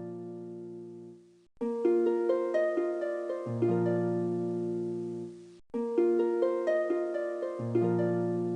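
Background music of plucked harp-like notes over held bass tones, played as repeating phrases. Each phrase fades, the first a little after a second in and the second after about five and a half seconds, and a new one starts after each break.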